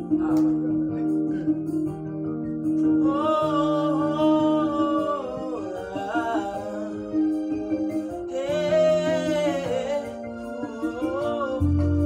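Gospel song performance: a man sings long drawn-out vocal phrases over steady held instrumental chords.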